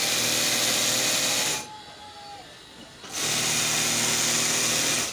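Industrial sewing machine stitching in two steady runs: the first stops about a second and a half in, and the second starts after a pause of about a second and a half.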